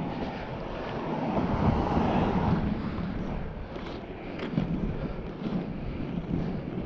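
Inline skate wheels rolling over rough concrete, a steady gritty rumble that swells about two seconds in, with wind on the microphone.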